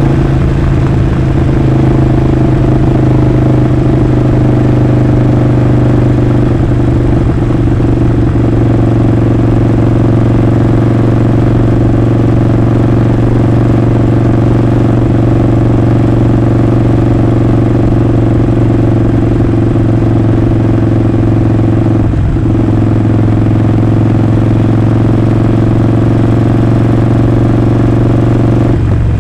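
Harley-Davidson Sportster Forty-Eight's 1200 cc air-cooled V-twin running at a steady engine speed, its exhaust loud and even. There is one brief break about three quarters of the way through.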